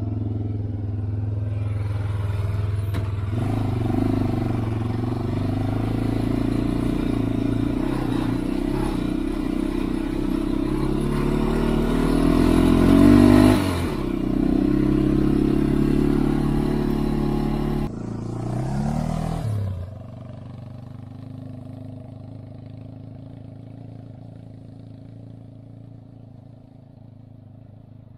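Honda 400EX ATV's single-cylinder four-stroke engine running under load on the trail, its pitch climbing to a peak about 13 seconds in and then dropping off. About two-thirds of the way through the engine note falls in pitch and grows much fainter, the quad moving off into the distance.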